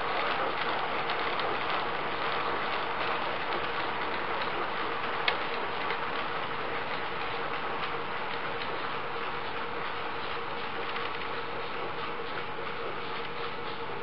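G-scale model train running on carpet-laid track: a steady rolling rattle of wheels with rapid small clicks over the rail joints, one sharper click about five seconds in, and a faint steady whine, slowly fading as the train pulls away.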